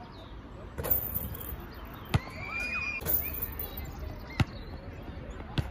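Basketball striking the hard outdoor court and the hoop: five sharp single knocks about a second apart.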